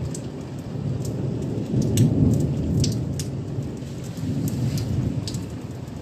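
Thunder rumbling in a thunderstorm, swelling to its loudest about two seconds in and rising again later, with scattered sharp taps of raindrops.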